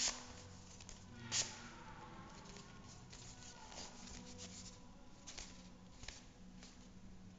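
Folded paper of an origami ninja star rustling and crackling as hands handle it, with two sharper crackles, one at the start and one about a second and a half in, and softer ones later.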